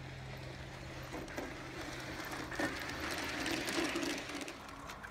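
G scale model train cars rolling along garden-railway track: a rapid run of wheel clicks and mechanical rattle that grows louder as the cars pass close, loudest from about two and a half to four and a half seconds in, then fades.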